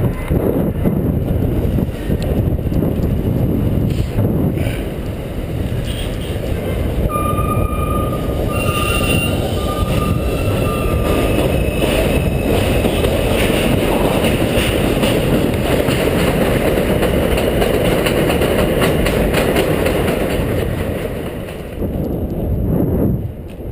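Elevated subway train running on the steel viaduct overhead: a loud, steady rumble with a thin, high wheel squeal about seven to twelve seconds in. The rumble fades near the end.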